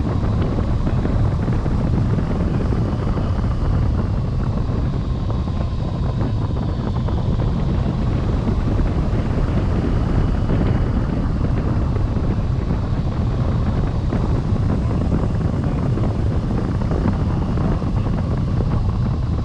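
Wind rushing steadily over a wing-mounted camera microphone on a tandem hang glider in flight, heard as a heavy, even low rumble.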